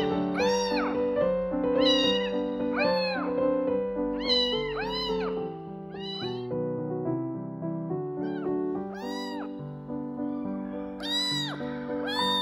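Very young kitten meowing over and over, high rising-and-falling cries about one a second, fewer and fainter in the middle, over background music.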